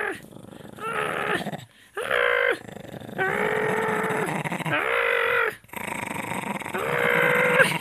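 A small long-haired dog growling in play: a string of five or six short pitched growls with brief pauses between them.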